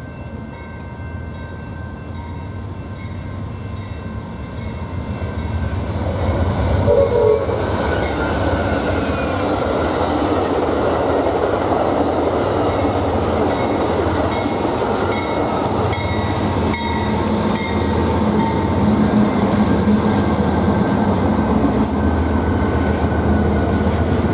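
Freight train passing: BNSF diesel locomotives rumble in, growing loud about six seconds in. Then freight cars roll by with a steady rumble and clatter of wheels on rail. A train horn sounds.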